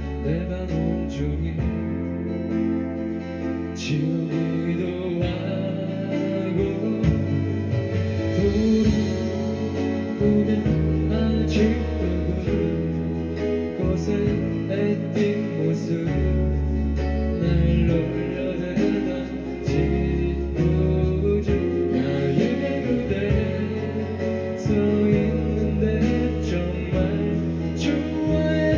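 Live pop band playing a ballad: guitar, bass and drums under a sung vocal line.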